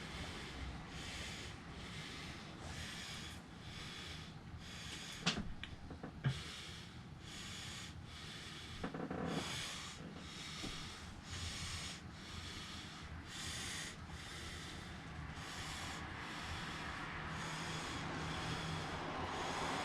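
Inside a moving bus: a low engine and road rumble, with a hiss that swells and fades about once a second. There are two sharp knocks about five and six seconds in and a short thud a few seconds later.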